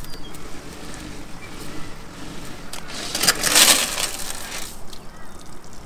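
Wet cast net being hauled aboard an aluminium boat: the chain lead line clinks against the hull while water streams and drips off the mesh, rising to a louder rush of splashing and clatter for about two seconds midway as the net is lifted over the deck.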